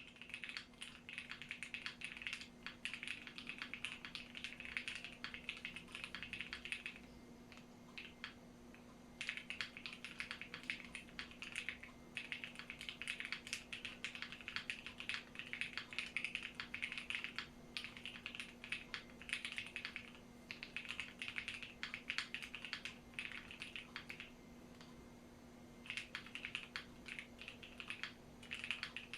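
Typing on a Bakeneko60 custom mechanical keyboard with KTT Strawberry linear switches, an FR4 plate and PBT keycaps: runs of quick keystrokes, with short pauses about seven and twenty-five seconds in.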